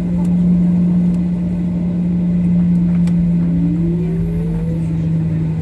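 Boeing 737-800 heard from the cabin: a steady engine drone with a deep rumble beneath it. In the second half, a fainter tone rises in pitch for about a second and a half.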